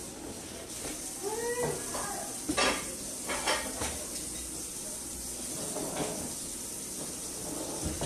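Dishes and cutlery clattering as they are cleared and stacked in a kitchen, with a few sharp clinks a few seconds apart. Faint voices can be heard in the background.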